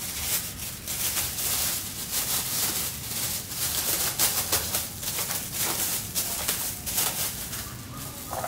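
Thin disposable plastic food-prep gloves crinkling and rustling as they are pulled on and worked over the hands, an irregular crackle with many small snaps.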